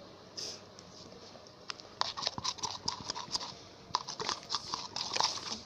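Glue-and-shampoo slime being stirred in a bowl, making quick, irregular sticky clicks and smacks that start about two seconds in, as the drops of activator are mixed through.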